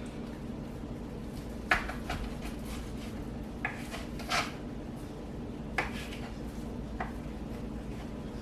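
Kitchen clatter: about six light knocks and clinks of pots and utensils, spaced a second or so apart, over a steady low hum.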